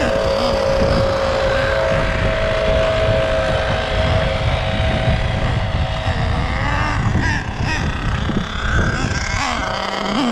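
Nitro two-stroke glow engine of an HPI Savage X 4.6 RC monster truck running hard as the truck drives, a steady high whine at first, then rising and falling in pitch in the second half.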